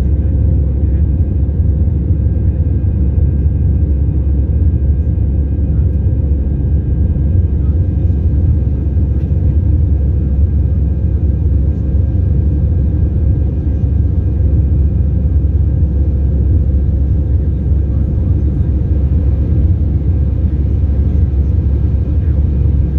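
Airbus A319 cabin noise heard over the wing during the climb after take-off: a steady, loud, deep rumble from its CFM56 turbofan engines and the airflow, with a faint steady high whine above it.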